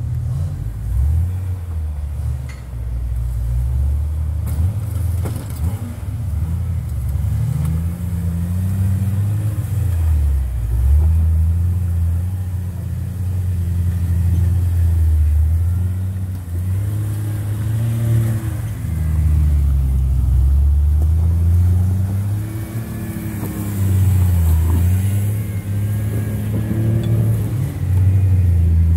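Jeep Wrangler engine revving in repeated swells as it crawls over boulders under load. The pitch rises and falls every few seconds as the driver blips the throttle.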